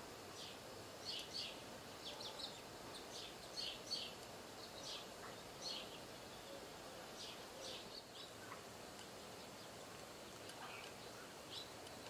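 Wild parrots calling: many short, high squawks in quick clusters, thinning out after about eight seconds, over a steady background hiss.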